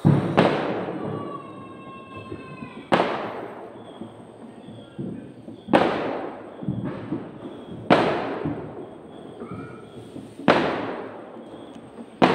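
A series of loud booms, one about every two and a half seconds, each fading out slowly in a long tail.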